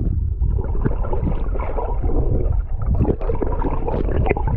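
Pond water gurgling and sloshing around an underwater microphone: a steady, muffled low rumble with many scattered small clicks and knocks.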